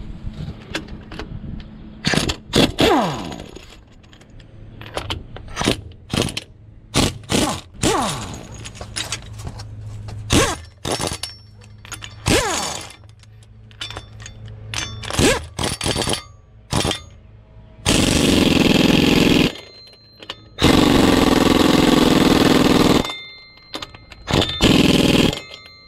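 Ingersoll Rand pneumatic impact wrench working the bolts on a truck's hydraulic pump: many short trigger pulls, several ending in a falling whine as it spins down, then three longer runs near the end.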